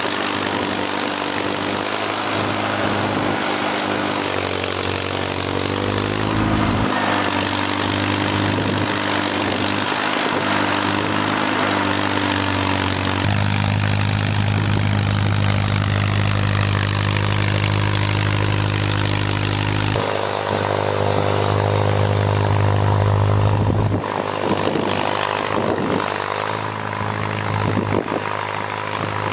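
Old farm tractor's engine running while it pushes snow with its front loader, its note rising and settling as the engine works, with a brief climb in pitch about five seconds in.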